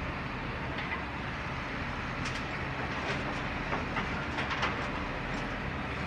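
Excavator's diesel engine running steadily while its bucket loads dirt and rocks into a steel dump truck bed, with a run of irregular clanks and clatters starting about two seconds in.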